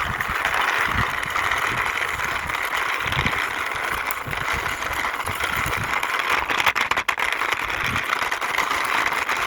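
Toy dump truck's plastic wheels rolling as it is pushed by hand across a hard surface: a steady rattling rumble with occasional low knocks.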